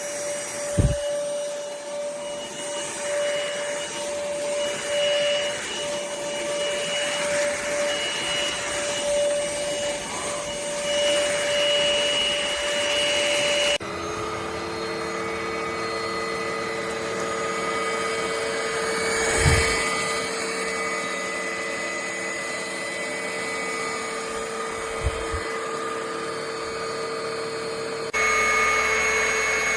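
Cordless stick vacuum cleaner running, a steady motor whine with airflow noise that drops abruptly to a lower pitch about halfway through and shifts again near the end. A few short low thumps are heard along the way.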